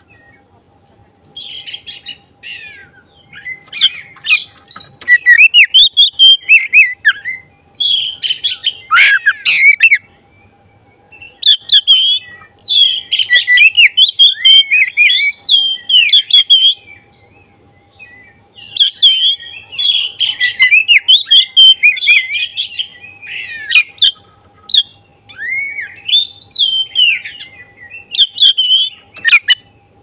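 Black-breasted Oriental magpie-robin (kacer dada hitam) in full song, with repeated bursts of rapid, varied whistled phrases broken by pauses of a second or two. This is the loud, continuous (gacor) song used as a lure to rouse other kacer into singing and fanning their tails.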